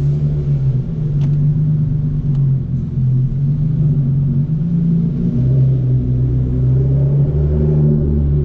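Straight-piped 3.8-litre V6 of a Hyundai Genesis Coupe running at low, steady revs, its exhaust giving a loud, deep, even rumble.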